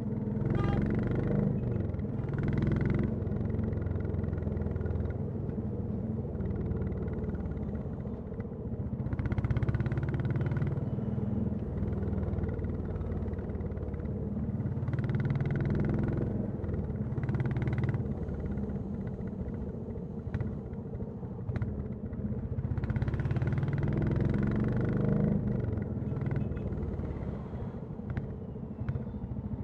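Royal Enfield Classic 350's single-cylinder four-stroke engine and exhaust running under way, a steady low rumble that swells louder four or five times for a couple of seconds each as the throttle is opened and eased off.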